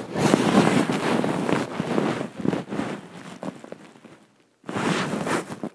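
Loud rustling and scuffing noise rubbing directly on the microphone, dying away about three and a half seconds in, then after a short gap another spell of rustling near the end.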